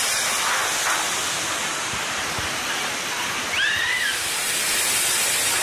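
River water rushing over shallow rocky rapids: a steady hiss. About three and a half seconds in there is a brief high call.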